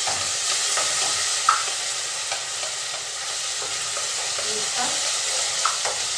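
Vegetables and tomato paste frying in a cooking pot, sizzling steadily, while a spoon stirs and clicks against the pot now and then, most sharply about one and a half seconds in.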